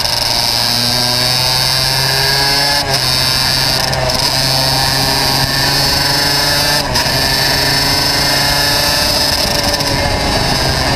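Racing kart's two-stroke engine running hard on track, its pitch rising and falling as the kart accelerates and slows, with a few brief dips.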